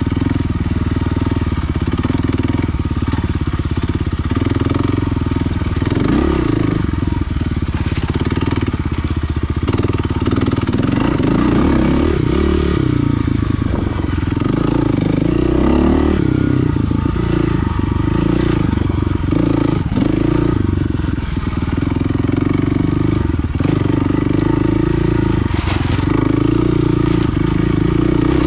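Kawasaki KLX300R dirt bike's four-stroke single-cylinder engine running under load as it is ridden off-road, its revs rising and falling with the throttle. Occasional knocks and clicks sound over it.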